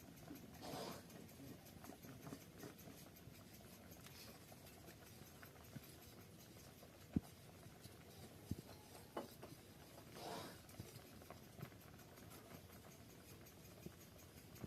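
Near silence with a few faint scattered clicks, one sharper click about seven seconds in, and two brief soft rustles.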